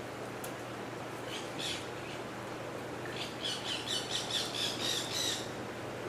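Military macaw squawking: two short squawks a little over a second in, then a fast run of about ten squawks in a row, four or five a second, for about two seconds in the second half.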